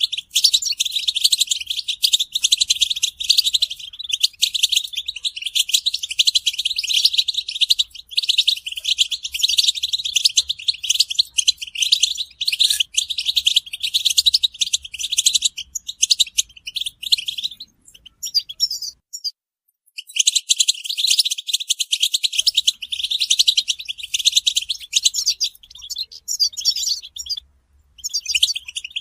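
European goldfinch song and chattering calls: a dense, rapid stream of high twittering notes that breaks off for about two seconds about two-thirds of the way through and briefly again near the end.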